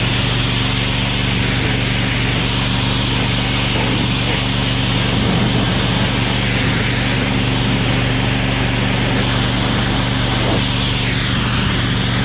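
Simpson PS60843 pressure washer running under load: the 420cc CRX gas engine's steady hum, with the high-pressure water jet hissing as it sprays. Near the end the hiss sweeps in pitch as the spray moves across the surface.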